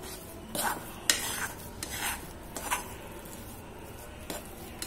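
Metal spatula scraping and stirring a thick turmeric, chana dal and jaggery paste around an aluminium kadai, a run of irregular scrapes as the filling is sautéed in ghee.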